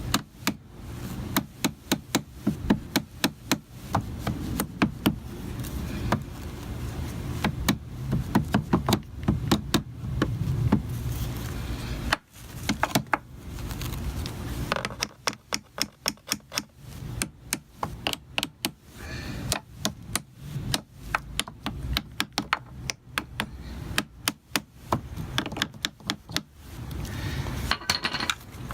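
Quick runs of light hammer taps, with short pauses, driving the cover back onto a BMW E36 power seat's gear housing; the cover is going on tight and closing up a little at a time.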